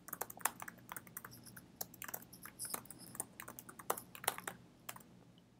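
Typing on a computer keyboard: quick, irregular keystrokes that stop about five seconds in.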